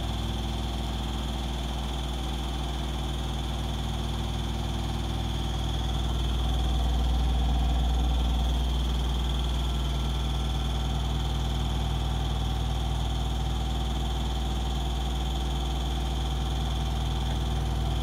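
Hoover DXOAG48AHC-84 front-loading washing machine spinning at high speed: a steady low hum with a thin high whine, swelling slightly about six to nine seconds in. Its feet are glued to a rubber mat to stop it walking during the spin.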